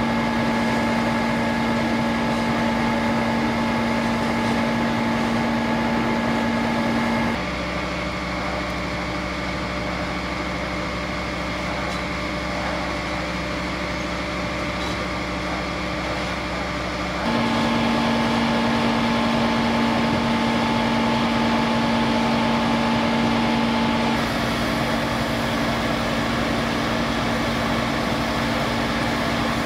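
Fire truck engines running steadily, a constant hum with a held tone. The hum shifts abruptly in pitch and level about seven seconds in, again about seventeen seconds in, and once more about twenty-four seconds in.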